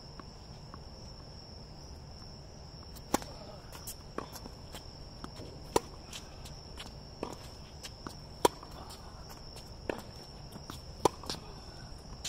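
Tennis ball struck by racket strings in a rally on a hard court: five sharp pops, one every one and a half to three seconds, starting about three seconds in, with fainter ball bounces and footsteps between. A steady high insect trill runs underneath.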